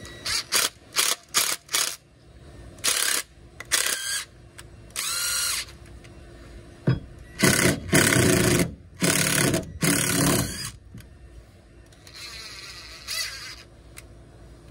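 Cordless drill working into a block of wood. It starts with a string of quick trigger taps, then makes several longer runs of about a second each. The loudest runs come past the middle, and a fainter run comes near the end.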